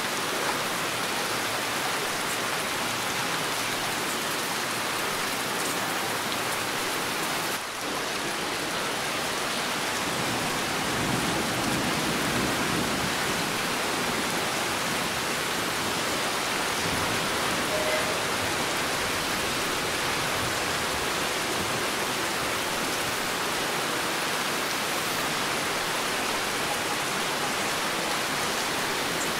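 Heavy rain falling in a steady, dense hiss. A low rumble of distant thunder swells for several seconds near the middle.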